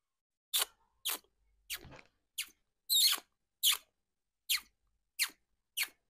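Shikra giving a series of about nine shrill, sharply falling calls, roughly one every 0.6 seconds: alarm calls of a frightened, freshly caught hawk.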